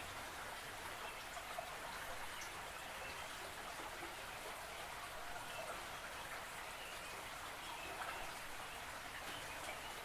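Creek water running and babbling steadily, a continuous patter of small splashes.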